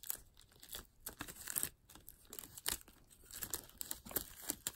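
Clear plastic shrink wrap being torn and peeled off a cardboard Blu-ray box set, an irregular run of crinkles and crackles.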